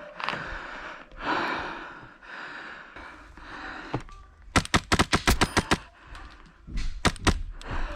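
Wolverine MTW HPA airsoft rifle firing a fast burst of about ten shots, roughly eight a second, then two or three more shots a second or so later.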